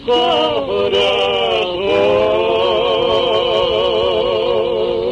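Two male voices singing a tonada in harmony, with a few short syllables and then a long held note with wide vibrato from about two seconds in. It plays from a 1931 78 rpm shellac disc, with record hiss and a narrow, old-recording sound.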